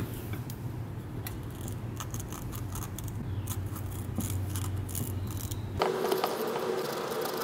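Light metallic scraping and clicking as burrs are worked off the edges of freshly drilled port holes in a cast iron compressor cylinder; the burrs are what stop the piston from fitting. A low hum underneath cuts off about six seconds in.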